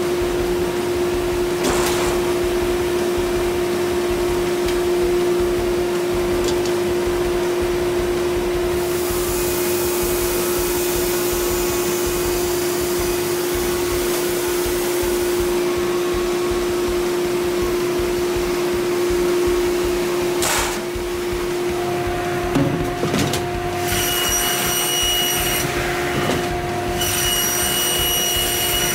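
Large industrial firewood processing line running: a steady machine hum with a constant low tone, and a hissing rush for several seconds near the middle. After a single knock about two-thirds of the way in, a different, higher machine hum with a shrill whine takes over.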